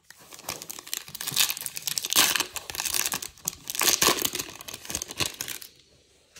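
Silver foil wrapper of a baseball card pack crinkling and tearing as it is ripped open by hand, stopping shortly before the end.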